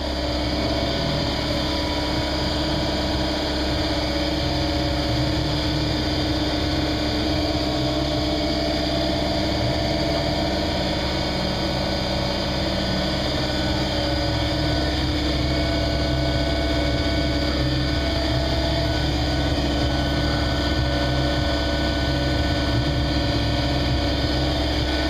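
Steady mechanical hum with a low rumble beneath it, running evenly with no change in speed.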